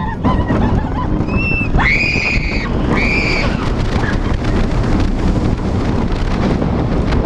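Heavy wind rushing over the microphone and the rumble of a roller coaster train running at speed in the front row, with riders screaming twice, about two and three seconds in.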